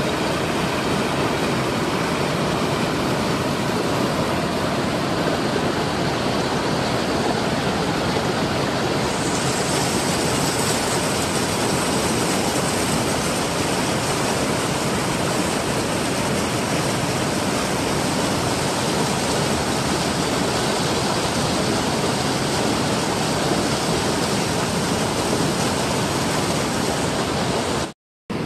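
River rapids rushing over rock ledges: a steady, loud rush of water that turns brighter and hissier about nine seconds in, and breaks off for a moment just before the end.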